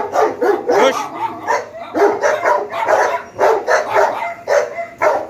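Dogs barking in quick, repeated barks, about three a second.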